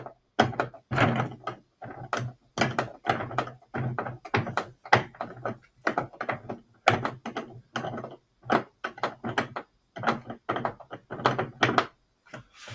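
A hand screwdriver drives the last screw through a swivel caster's mounting plate into the plastic cart shelf, in short repeated turns of about two a second.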